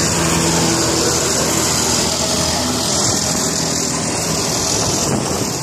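Street traffic noise: motor vehicle engines running close by. A steady engine hum is strongest in the first half and fades after about two and a half seconds.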